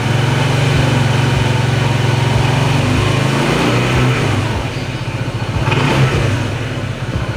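Honda PCX 160 scooter's single-cylinder engine running and revved on the throttle, the rear wheel spinning freely with the scooter on its stand. The engine eases off a few seconds in, then picks up again briefly near the end.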